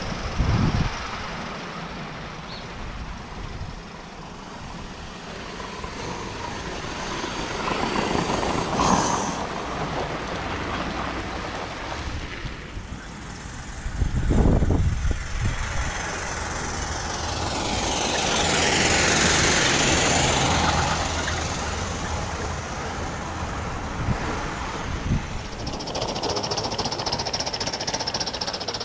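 Gauge 1 model train running on its track, a rapid rhythmic clatter that swells and fades as it passes close by about two-thirds of the way through. There is a brief low thump near the middle.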